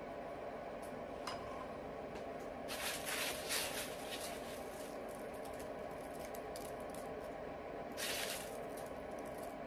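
Kitchen handling noises while food is dished up: two brief noisy bursts, about three seconds in and again near the end, and a few light clicks, over a steady low hum.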